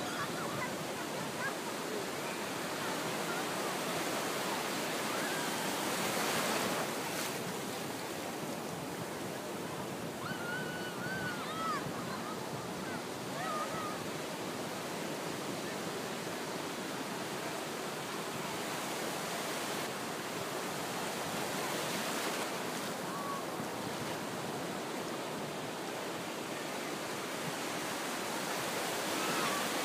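Ocean surf washing in and breaking on the beach, a steady rush of water that swells louder a few times as waves break.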